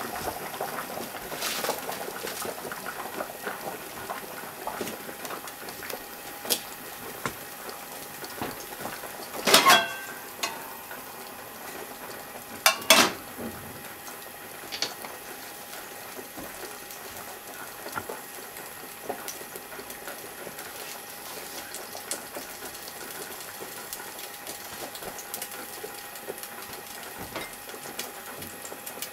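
Gas burner heating an empty frying pan: a steady hiss with a faint hum, broken by a few sharp knocks and clinks, the loudest about ten seconds in and a double one about thirteen seconds in.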